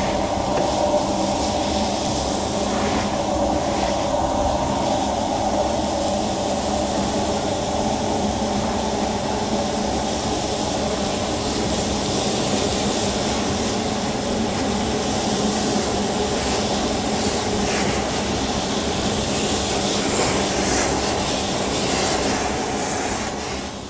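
Industrial explosion-proof vacuum cleaner running steadily: an even machine hum and hiss with no change in speed.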